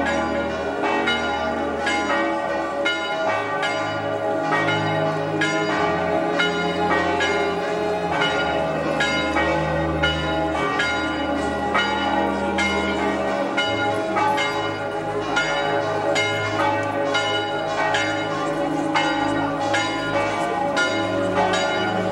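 Church bells ringing a continuous festive peal, strokes following one another rapidly and their tones overlapping.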